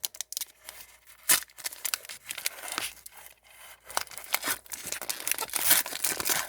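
Upper Deck retail card pack wrapper being torn open and crinkled by hand: irregular crackles and tearing, busier in the second half.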